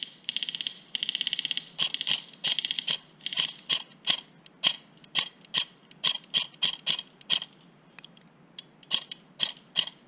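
Airsoft BB gun firing at close range: two short full-auto bursts in the first two seconds, then a string of single shots about three a second, a pause of about a second and a half, and a few more shots near the end.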